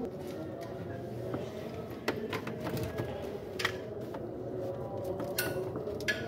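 A car battery being set down into its tray: scattered clicks and knocks of the plastic battery case against the tray, over a steady low hum.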